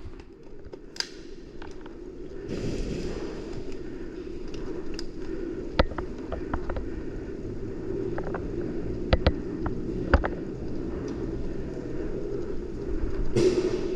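A few sharp single pops, about 6 seconds in, twice close together just after 9 seconds, and once at 10 seconds, typical of airsoft guns firing during a game. They sit over a steady low rushing noise.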